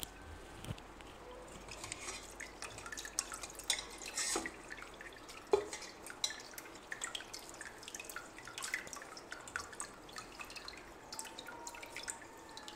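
Cooked drumstick pulp squeezed by hand in a steel colander, the juice trickling and dripping into a steel pot below in irregular small splashes. One sharper, louder tap about five and a half seconds in.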